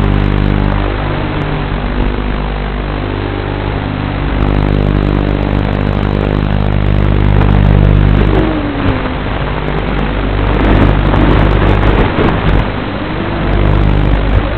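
Racing quadcopter's brushless motors and propellers running under a steady electrical hum, the pitch dipping and rising with the throttle a couple of times, around the middle and near the end.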